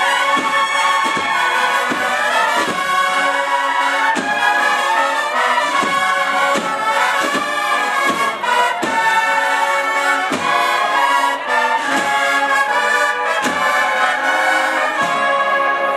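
Cornet and drum band playing a Sevillian cofrade processional march: massed bugle-style cornets in harmony over a steady drum beat.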